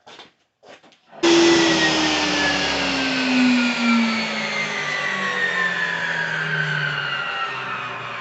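Table saw coming on abruptly about a second in after a few light clicks, then running loud, its motor whine sinking slowly in pitch.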